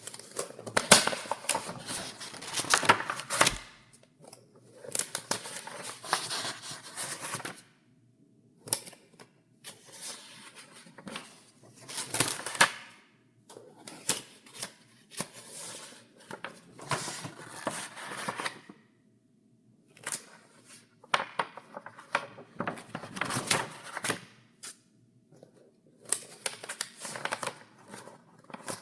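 Paper pages of a document file being turned by hand: crisp rustling with sharp page snaps, coming in runs of a few seconds with brief pauses between them.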